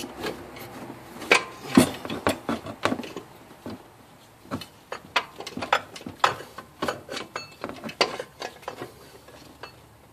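Metal alternator housing knocking and scraping against the engine and its mounting bracket as it is worked down into place by hand: a run of irregular clicks and clunks, loudest about two seconds in.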